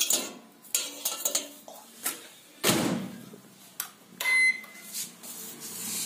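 Clinks and knocks of a plate being set on a convection microwave's metal rack, a thud of the microwave door shutting partway through, then a single short keypad beep.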